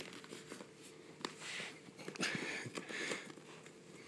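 Zipper on a soft-sided pet carrier being pulled open in a few short, halting pulls, with small clicks from the metal zipper pulls.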